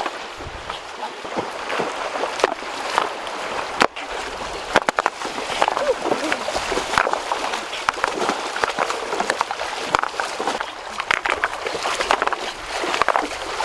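Water sloshing and splashing, with many sharp clicks and knocks throughout.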